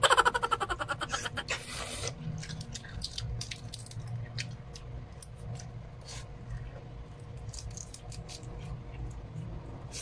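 Small scattered clicks and crackles of eating: a balut's eggshell being peeled and fingers working food over a foil tray, over a low steady hum. It opens with a short run of quick pulses in the first couple of seconds.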